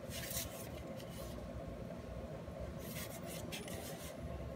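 Hands handling a plastic-wrapped router, with the film and casing rubbing and rustling in a few short scratchy bursts: at the start, about a second in, and again around three seconds in.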